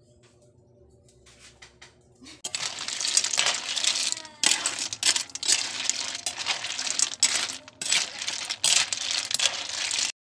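Snail shells clattering against a metal wok and a metal spoon as they are stirred in coconut milk: a fast run of clinks and scrapes that starts about two and a half seconds in and cuts off suddenly near the end.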